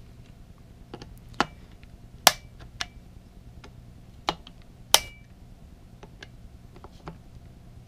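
Wheeler FAT Wrench torque screwdriver clicking as it breaks over at its preset torque, checking screws already tightened. There are four sharp clicks a second or so apart, with fainter ticks between.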